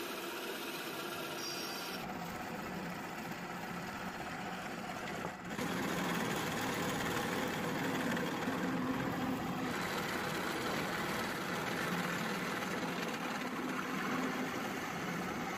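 Drill press running and cutting through 3/16-inch steel plate, a steady motor whir mixed with the grinding of the bit in the metal; pilot holes are followed by a step bit opening them to size. The sound changes abruptly about two seconds and again about five seconds in, and is louder after the second change.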